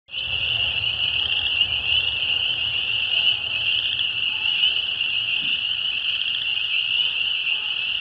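Chorus of many frogs calling at once: a dense, steady, high-pitched peeping, with a faint low rumble underneath.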